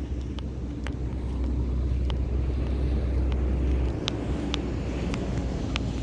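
Wind buffeting the microphone with a steady low rumble that eases slightly about four seconds in, with scattered sharp ticks.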